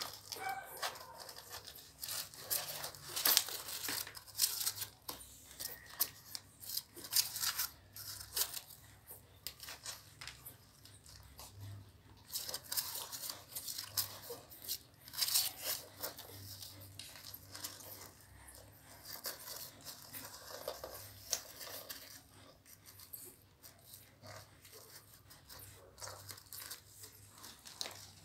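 Litter of newborn puppies nursing and squirming against their mother on their bedding: irregular rustling and crackling clicks, coming in clusters.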